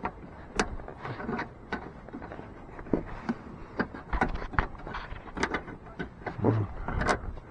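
Metal threaded rod scraping and tapping against metal parts and wiring in a truck's engine bay as it is worked down through a tight gap: irregular clicks and scrapes, several a second.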